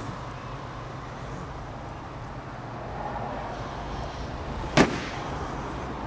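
A single sharp knock near the end over a steady low hum.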